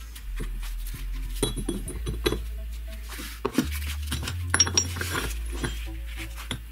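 Flat steel plates and a threaded steel block clinking and clattering against one another as they are handled and fitted together on a wooden bench, in two clusters of sharp clinks.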